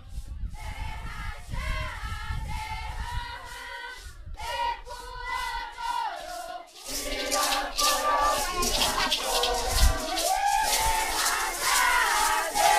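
Group of voices chanting together over a steady shaken-rattle beat; it grows louder and fuller about seven seconds in.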